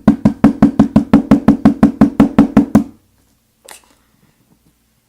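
Rapid, evenly spaced knocking, about five or six strikes a second, stopping about three seconds in. It is a lock cylinder being rapped against a wooden work surface to shake the driver pins and springs out of the bible.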